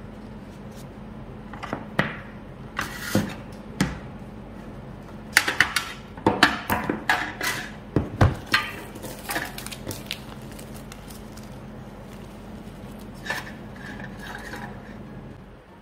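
Plastic slime tubs and a thin aluminium tray being handled and set down on a wooden table: scattered clicks, knocks and light clatter, busiest in the middle, over a low steady hum.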